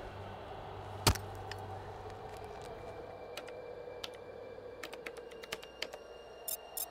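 Designed sound effects: one sharp click about a second in over a steady low hum, then scattered small electronic clicks and ticks that come faster and brighter near the end, like a machine powering up.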